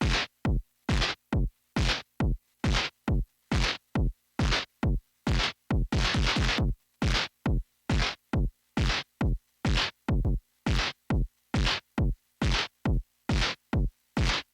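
Synthesized percussive hits from Arturia's software emulation of the Korg MS-20. Each hit is short and sweeps quickly down in pitch from a bright hiss to a deep thud. They are played in a drum-machine-like pattern of about two to three a second, broken by quick rolls of rapid repeats.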